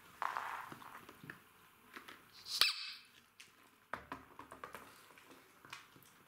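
Two Jack Russell terriers moving about on a fabric dog bed, with light scuffing, small ticks and chewing sounds. About two and a half seconds in comes one short, sharp sound, the loudest thing heard.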